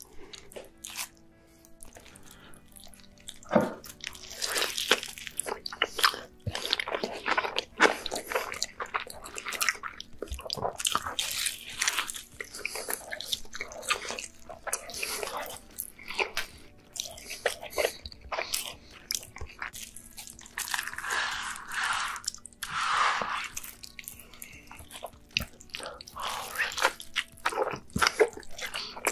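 A person biting into and chewing a tall, sauce-drenched stacked cheeseburger, with wet, crunchy, irregular bites and chewing. The eating starts about three and a half seconds in.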